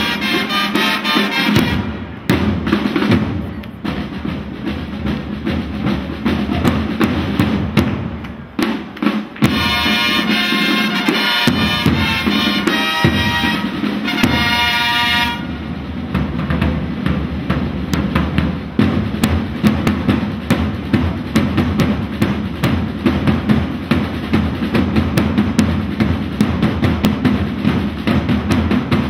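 Historical flag-wavers' drum corps playing a steady marching beat of snare and bass drums with rolls. Long-held trumpet notes sound over the drums at the start and again for several seconds in the middle.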